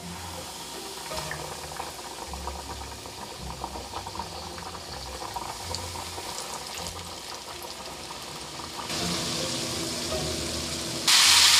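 Breaded chicken pieces being lowered into hot oil, the oil bubbling and sizzling with a steady crackle. Near the end it jumps to a louder, fuller deep-fry sizzle.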